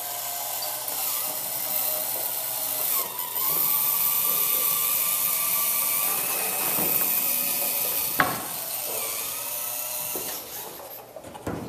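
Electric drive motor of a small wheeled robot vehicle whining steadily as it drives, dipping briefly in pitch about three seconds in. A single sharp knock about eight seconds in, and the whine fades away near the end.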